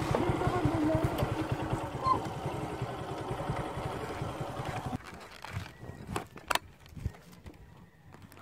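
Motorcycle engine running with a rapid, even pulsing that slowly fades. It stops abruptly about five seconds in, and a few scattered sharp clicks follow.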